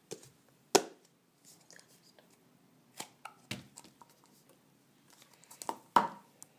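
Plastic Play-Doh tubs and lids handled on a tabletop: a few sharp knocks and clicks with soft rustling between, the loudest just under a second in and again near the end.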